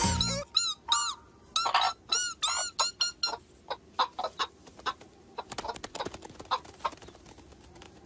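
Cartoon hens clucking: a quick run of short calls that rise and fall in pitch, giving way to quieter, clipped clucks that die away. Background music cuts off just after the start.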